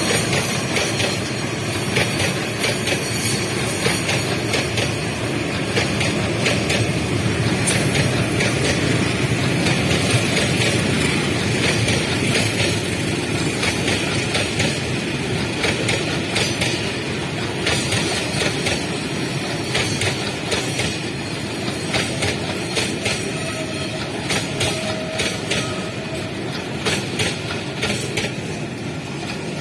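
Container freight wagons rolling past on the rails: a steady rumble of steel wheels on track, with repeated clicks and knocks as the wheels cross rail joints.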